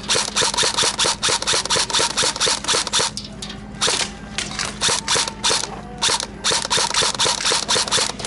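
Airsoft guns firing in rapid succession, a sharp crack about five or six times a second, with brief pauses about three and six seconds in.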